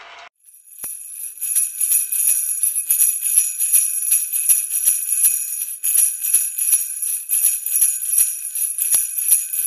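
Jingle bells (sleigh bells) shaken in a continuous bright jingle, starting about a second in after a brief silence.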